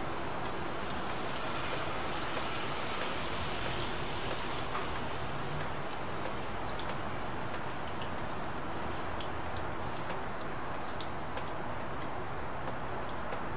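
Rain falling steadily: an even hiss with scattered sharp ticks of single drops striking.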